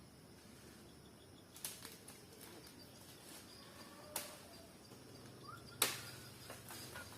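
Quiet outdoor background with faint short bird chirps and three sharp clicks or snaps, the loudest near the end.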